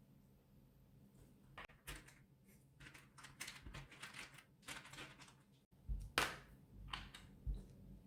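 Small plastic car trim fastening clips clicking and tapping as they are handled and pressed into a mounting hole. A scatter of light clicks, with a run of them from about three to five seconds in and the sharpest two about six seconds in.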